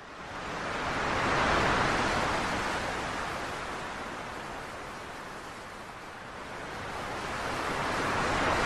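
A rush of noise like surf washing in. It swells up out of silence over the first second or so, eases off through the middle and builds again near the end.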